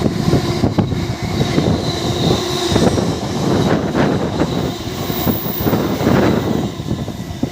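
Freight train wagons passing at speed, a continuous loud rumble and clatter of wheels over the rail joints.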